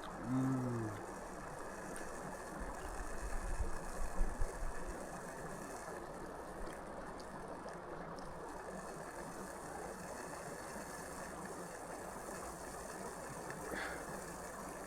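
Beef frying in oil in a pan over a camp stove: a steady sizzling hiss. A few low thumps come about two to five seconds in.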